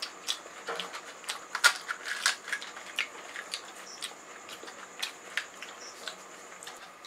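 Crisp, hollow fried puris (pani puri shells) crackling and crunching as they are handled, cracked open and chewed: a string of short, sharp crackles, densest and loudest a couple of seconds in and fewer towards the end. A faint steady hum lies underneath.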